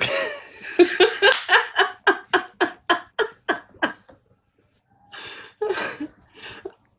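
Hearty human laughter: a fast run of rhythmic 'ha' pulses, about three or four a second, for about four seconds, then a few quieter, breathier laughs after a short pause.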